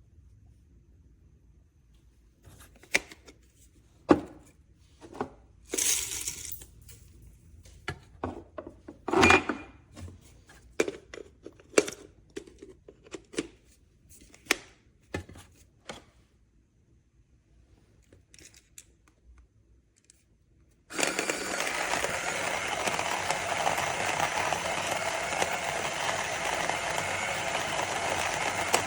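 Scattered clicks and knocks of the grinder being handled, then, about 21 s in, a cordless electric conical burr coffee grinder starts and grinds beans with a steady, even noise.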